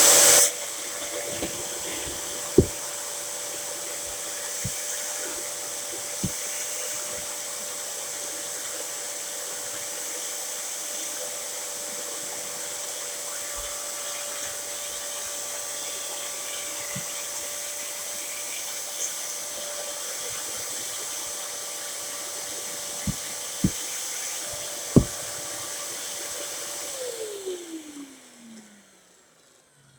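Dyson DC07 bagless upright vacuum cleaner running steadily with a steady whine, a loud rush right at the start and a few sharp knocks along the way. Near the end it is switched off and the motor winds down in a falling whine.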